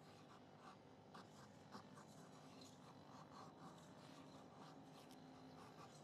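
Knife blade shaving thin curls off a stick of split kindling, making a feather stick: a run of faint, short scraping strokes, about two a second.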